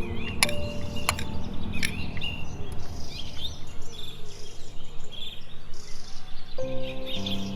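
Small birds chirping in short, repeated twittering calls over a steady low rush of ocean waves. Soft sustained music notes come back in near the end.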